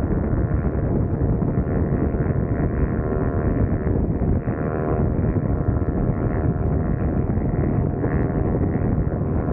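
Wind rushing over the microphone at highway speed, with the steady engine note of a Husqvarna Svartpilen 401's single-cylinder engine cruising underneath.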